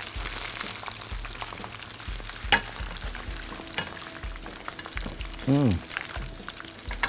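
Chicken wings frying in hot oil in a wok on their second, crisping fry. The sizzle thins after about a second, as the wings are lifted out with a spider strainer and tongs, which clink and knock against the wok and plate a few times. The crisp wings knock against the pan.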